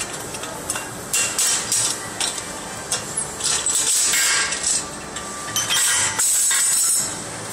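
Hammer blows and metal clanks on a steel forming jig as red-hot wrought iron bars are bent into shape, several sharp knocks in the first half. Two longer metallic scraping or rattling stretches of about a second each follow in the second half.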